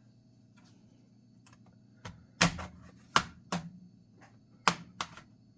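Plastic snap clips of an HP laptop's case popping loose as a thin tool pries the shell apart: about six sharp clicks in the second half, after a couple of quiet seconds.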